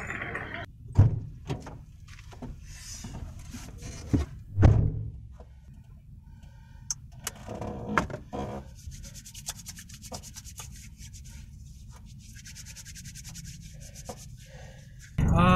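A shopping trolley rattles for a moment, then two heavy thumps. After that comes a long stretch of dry rubbing with small clicks as hands rub along a bare forearm.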